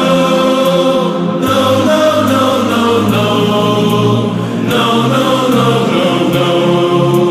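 Background music with sung vocals and a steady beat.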